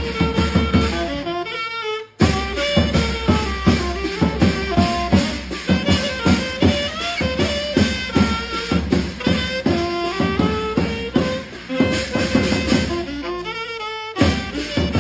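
Saxophone playing a lively melody over steady beats on a bass drum struck with a stick. The music breaks off for a moment about two seconds in, then carries on.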